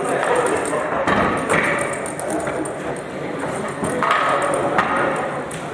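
Foosball table in play: the ball knocked about by the figures on the rods, with a string of sharp knocks and clacks.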